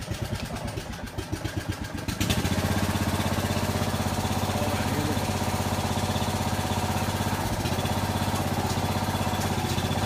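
Small engine of a pier-lifting jack machine running, then about two seconds in picking up to a louder, steady run as the machine starts jacking the settled wall up.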